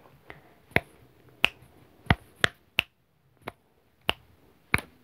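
Fingers snapping, about nine sharp snaps at uneven spacing, a little under two a second.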